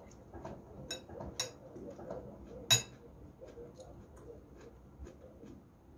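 Metal cutlery clinking against a glass bowl three times, the last and loudest nearly three seconds in, with soft eating sounds between.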